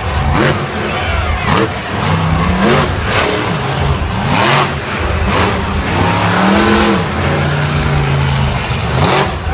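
Monster truck engine revving in repeated rising and falling surges as the truck drives across a dirt course, with a steady held note near the end, over a constant din of arena noise.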